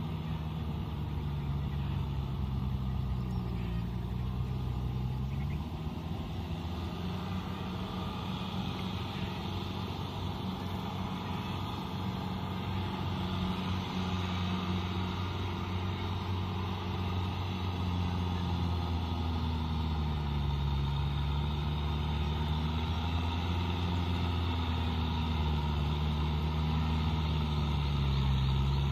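Kubota tractor's diesel engine running steadily while tilling a flooded, muddy field. Its pitch dips and recovers a few times, and it grows a little louder near the end.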